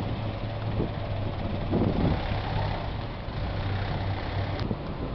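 Street traffic: a steady low hum of car engines in slow-moving traffic, swelling briefly as a car passes about two seconds in.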